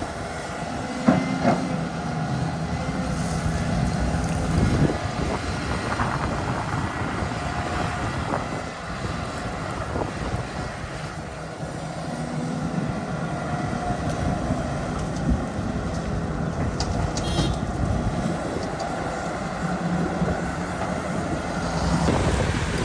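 Volvo crawler excavator's diesel engine running and rising and falling in load as it works its hydraulics digging and loading soil, with a few sharp clanks of the bucket and metal parts.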